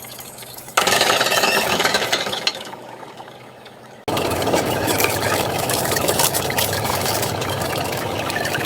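Heavy construction machinery engines running, in spliced segments: the sound jumps in abruptly about a second in, fades away, then returns steady just after four seconds.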